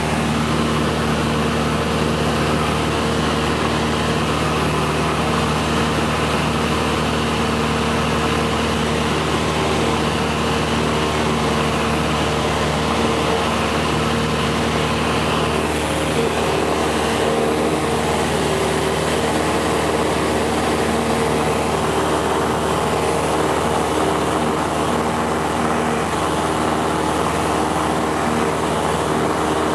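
Cessna 172 SkyHawk II's four-cylinder piston engine and propeller running steadily in cruise flight, heard from inside the cabin as an even, unchanging drone.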